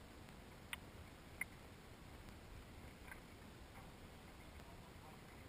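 Near silence, with two faint sharp ticks about a second in and a fainter one about three seconds in.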